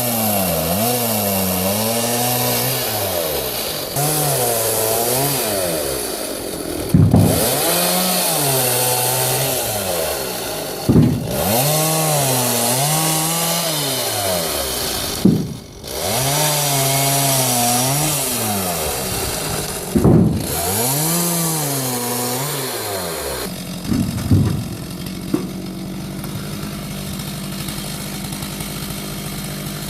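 Two-stroke chainsaw mounted as a chop saw, cutting through small logs: about six cuts, each a few seconds long, with the engine pitch sagging under load and revving briefly between cuts. It settles to a steady idle for the last several seconds.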